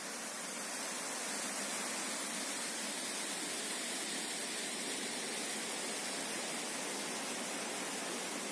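Steady rush of a waterfall cascading over rocks, a continuous even roar of white water that swells a little in the first second.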